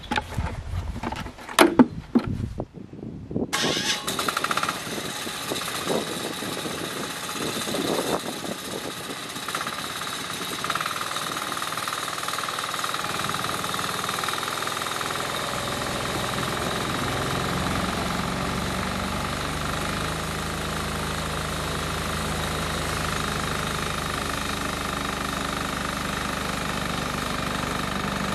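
The engine of a homemade bandsaw sawmill running steadily, with a deeper hum joining about halfway through. In the first two seconds there are a few knocks and clatters.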